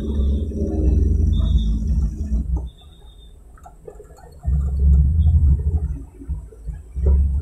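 Off-road jeep riding along a rough dirt track, a heavy low rumble with a humming tone over it. The rumble drops away for about two seconds midway, then comes back loud.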